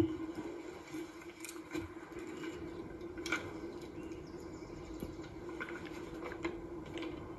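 Hushed crowd ambience: a steady low hum with scattered small clicks and rustles, and a sharp click right at the start.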